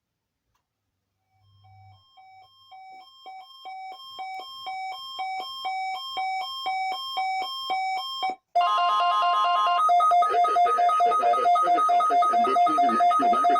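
Weather radio alert: even electronic beeps about twice a second, growing steadily louder. About eight seconds in they switch to a steady, louder alarm tone of two pitches. This is the alarm of a NOAA Weather Radio weekly test.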